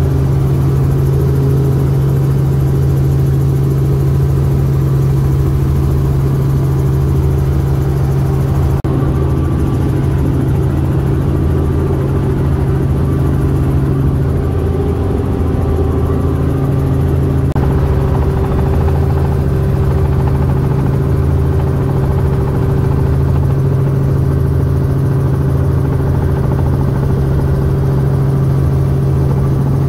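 Robinson R44 helicopter heard from inside the cabin: the loud, steady drone of its six-cylinder piston engine and rotor, with a deep hum beneath.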